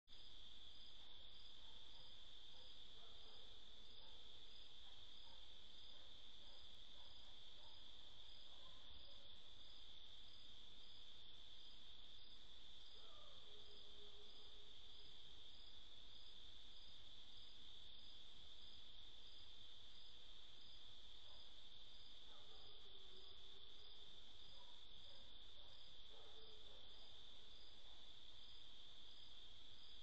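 Crickets singing: a steady, unbroken high-pitched trill, with a faint regular chirp just above it. Now and then a faint lower call slides down in pitch.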